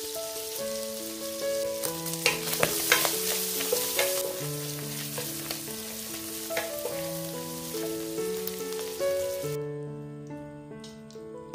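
Minced pork sizzling in soy sauce in a nonstick frying pan, stirred and scraped with a wooden spatula, with scattered clicks a few seconds in. The sizzle stops suddenly near the end as the meat is lifted out. A simple background music melody plays throughout.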